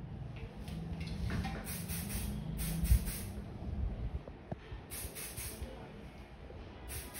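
Aerosol hairspray can sprayed onto the hair in several short hissing bursts.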